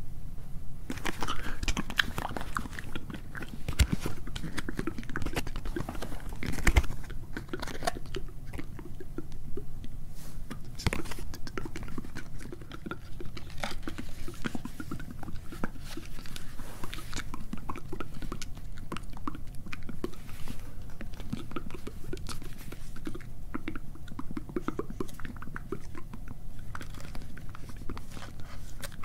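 Close-miked ASMR mouth sounds of inaudible whispering: a dense run of small wet clicks and crackles, with no words that can be made out.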